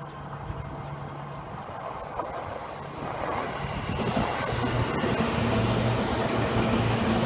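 Seibu 10000 series New Red Arrow electric limited express train approaching and then running past close by. Its running noise grows louder from about three seconds in, with a steady low hum under the rush of wheels on rails as the cars go by.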